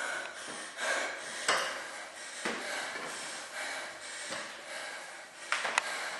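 A woman panting hard through the mouth from heavy exertion, picked up close by a clip-on microphone on her chest, with a few sharp knocks near the end.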